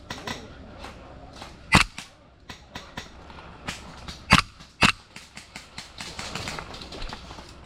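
Airsoft gun firing three single shots, one about two seconds in and then two more half a second apart, with smaller clicks between.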